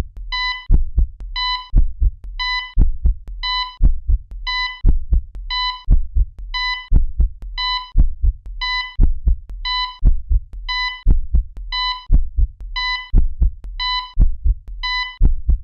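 An electronic heartbeat sound effect. A short beep like a heart monitor's comes about every two-thirds of a second, each with low heartbeat thumps.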